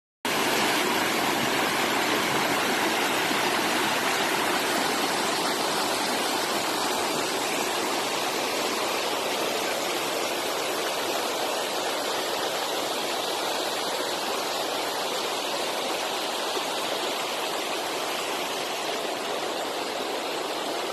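Shallow stream of water running over rocks: a steady rushing that starts abruptly less than a second in.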